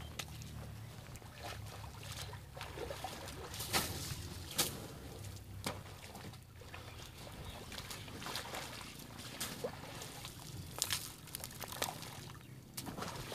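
Muddy water splashing and trickling in irregular strokes as elephants dip and swing their trunks in a mud pool.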